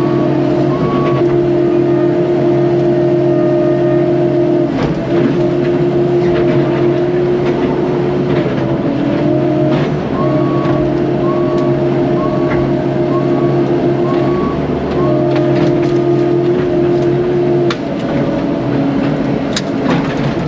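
CAT 308 mini excavator's diesel engine running under hydraulic load, its pitch dipping briefly a few times as the machine works. Scattered knocks and cracks, and runs of short, evenly spaced beeps near the start and again in the second half.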